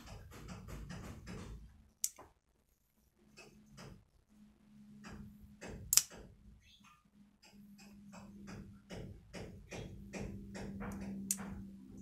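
Spring-loaded metal folding knife being worked by hand: a run of small clicks and rattles, with a sharp metallic snap about 6 seconds in as the blade swings open and locks, and another sharp click near the end as it is folded shut.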